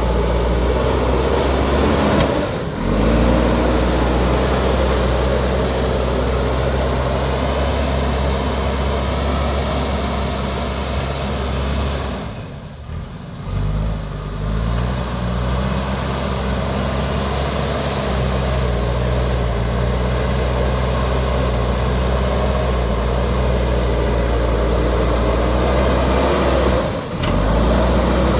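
Diesel engine of a JCB backhoe loader running under working load. Its note dips briefly three times, most deeply about halfway through, and picks up again.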